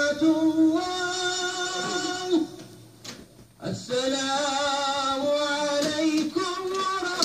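A voice singing long, wavering melodic notes, with a pause of about a second near the middle.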